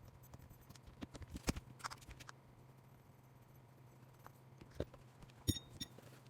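Faint, scattered small clicks and taps of hands working on a mini RC rock crawler (Axial UTB18 Capra) as its wheels and tires are taken off, over a low steady hum.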